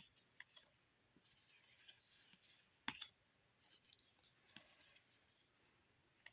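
Faint sliding and soft flicking of One Piece trading cards as they are flipped through one by one in gloved hands, with one sharper card snap about three seconds in.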